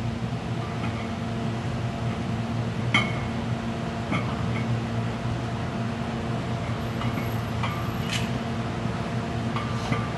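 Steel barbell plates clinking on the bar several times during bent-over barbell rows, sharp short clinks with the loudest about three seconds in, over a steady mechanical hum.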